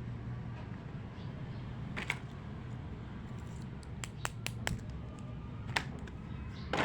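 Small plastic toy pieces clicking and tapping as they are handled: a single click, then a quick run of four, then two more, over a steady low hum.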